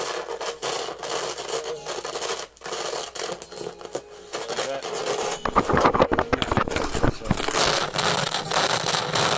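The Aiwa CS-230U boombox playing a cassette through its speakers, scratchy and rough-sounding. About halfway through, loud crackling and thumps break in, of the kind a boombox gives when its controls are dirty; the owner says the controls still need going through.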